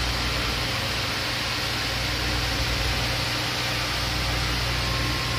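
Steady hum of an electric motor running, with an even hiss over it.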